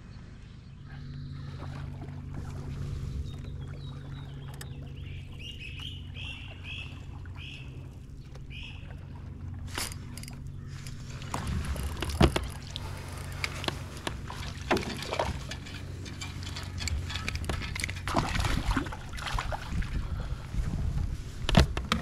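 A low steady hum under a run of about six short, evenly spaced bird calls. From about halfway, a busy clatter of clicks and knocks as a spinning reel is cranked and a small bass is reeled in to the kayak, with a sharp knock near the end.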